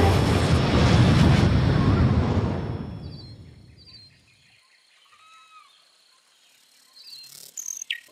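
A loud, deep rumbling wash of noise fades out over the first three to four seconds, leaving near quiet with a few faint bird-like chirps. Near the end there is a brief fluttering whoosh with a short falling chirp.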